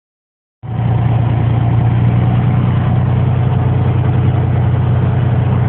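An engine running steadily with a low hum, starting about half a second in.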